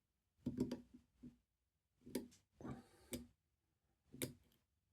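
Pick wire lifting and probing the levers of a safe lever lock under tension: faint metallic clicks and scrapes in short clusters, roughly once a second.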